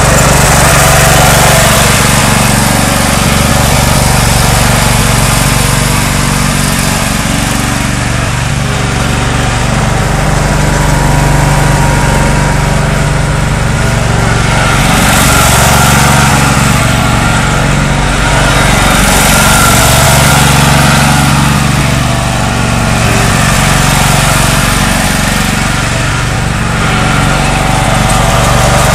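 Toro zero-turn riding mower's engine running steadily as the mower drives around, its hum swelling a little louder and then softer several times.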